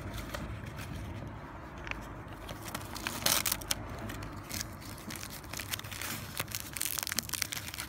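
Scattered scratching, clicking and crinkling noises of small parts and tools being handled by hand, with sharper clicks about three seconds in and again near the end.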